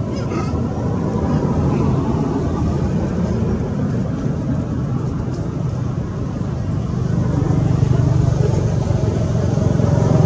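Steady low rumble of background motor noise, like road traffic, getting louder in the last few seconds.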